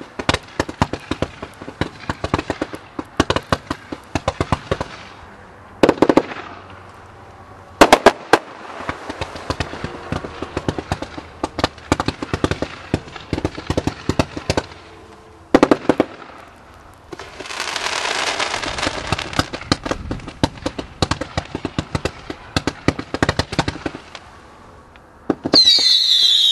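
A 194-shot consumer fireworks cake firing in quick succession: a steady stream of pops and bangs, with louder reports about 6, 8 and 16 seconds in. Around 17 to 20 seconds there is a stretch of hissing. Just before the end come whistles falling in pitch.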